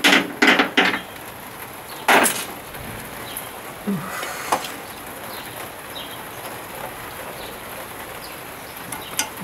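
Hand tools being handled at a workbench: a quick run of four sharp clatters and knocks in the first second, another about two seconds in, then a few lighter clicks and taps.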